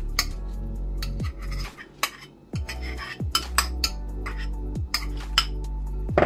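A metal spoon scraping grated cheese out of a small ceramic bowl into a glass mixing bowl, clinking sharply against the bowls several times, then stirring the cheese into the filling. Background music plays throughout.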